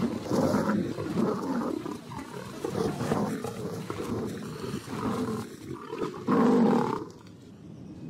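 A cornered leopard fighting off an attack on the ground: harsh big-cat calls one after another, the loudest outburst about six seconds in, dying down near the end.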